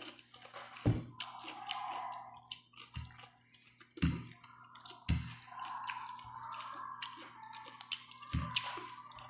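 Close-up eating sounds: a metal fork clinks sharply against a ceramic bowl about five times while twirling noodles, with wet chewing in between.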